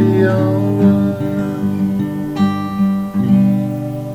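Acoustic guitar strumming the closing chords of a song, with the last chord left to ring and fade out.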